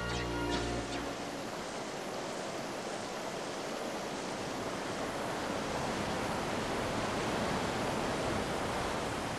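Storm sound effect: a steady rushing of heavy rain, wind and surging water, taking over as the music fades about a second in.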